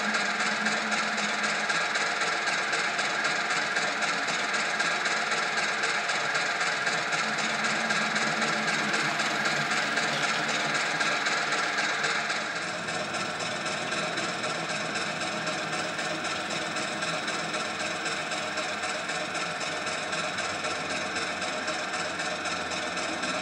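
Sound decoder in a Hornby class 08 model shunter playing its diesel engine sound through the model's small speaker, a steady running engine note with a fast knocking beat. About halfway through, the engine note changes.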